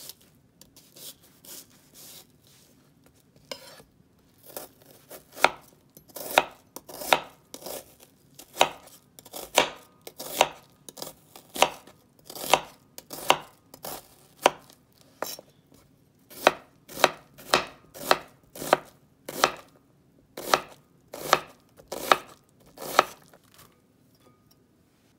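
Chef's knife chopping an onion on a cutting board. A few faint cuts at first, then a steady run of sharp knocks of the blade on the board, about three every two seconds, stopping shortly before the end.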